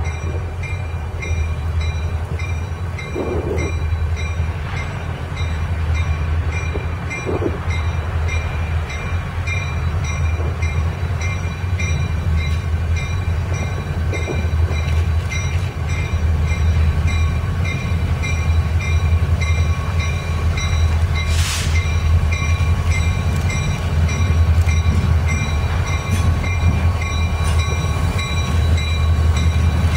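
Diesel-hauled train running by, with a loud steady low locomotive rumble and wheel noise that grows slightly louder, a faint high pulsing ring throughout, and a brief hiss about two-thirds through.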